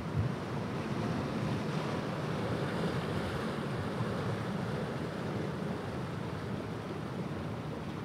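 Ocean surf breaking on a sandy beach: a steady rush of waves.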